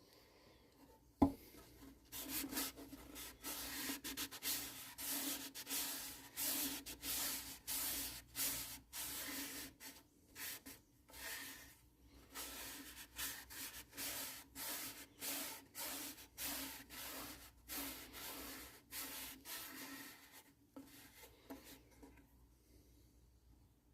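Repeated hand rubbing strokes on a ukulele's wooden body during finishing, about two strokes a second, with a single knock about a second in.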